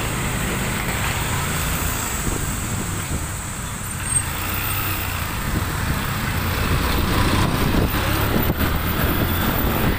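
Motorcycle riding along a city street: the engine running steadily under wind and road noise, with other traffic around, a little louder in the last few seconds.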